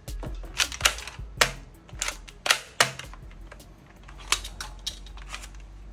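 Sharp clicks and snaps of a hard plastic toy pistol and its attachment being handled and fitted together, about half a dozen loud clicks in the first three seconds, then fainter ones.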